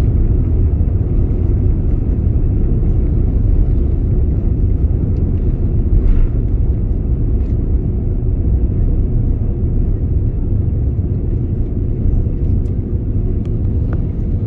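Steady low rumble of an airliner heard from inside the passenger cabin: engine and airflow noise with a few faint clicks.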